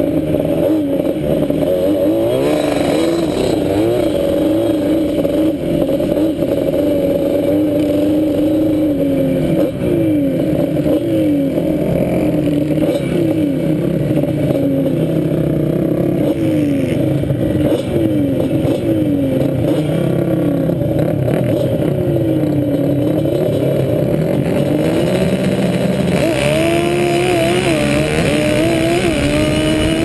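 Sport ATV's engine running hard while riding on sand, its pitch rising and falling over and over as the throttle is worked. Toward the end it pulls harder, with more high-pitched noise.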